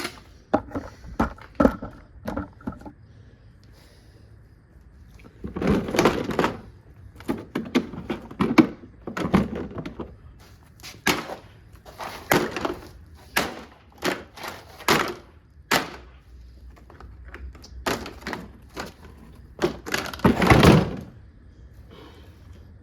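A Kuppet portable washing machine being smashed apart: hard knocks and thuds, a quick run of them, a pause of about two seconds, then irregular blows about once a second, a few drawn out into longer cracking crunches.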